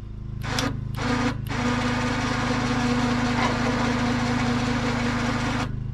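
Four-wheel drive's electric winch motor pulling under load: two short bumps, then a steady whine for about four seconds as it takes the weight of the sawmill frame, stopping just before the end. A steady low hum runs underneath.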